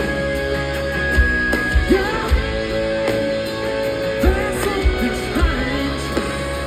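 Rock music from the closing stretch of the song: guitar playing long held notes that bend up into pitch, over bass and drum hits.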